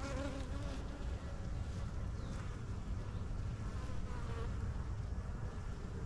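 Honeybees buzzing around an open hive and a frame of comb crowded with bees: a steady, even hum of many bees.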